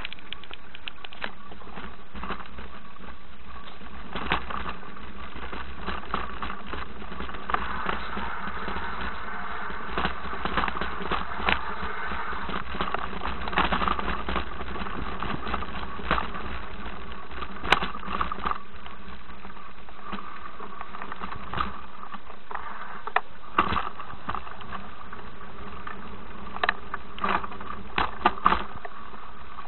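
A bike descending a rough dirt woodland trail: irregular knocks and rattles as it jolts over ruts and rocks, above a steady low rumble, with the sharpest knocks bunched in the last few seconds.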